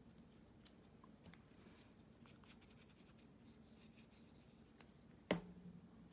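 Faint rustling and small taps of paper being handled, then one sharp knock a little after five seconds in as a plastic tacky-glue bottle is set down on the work table.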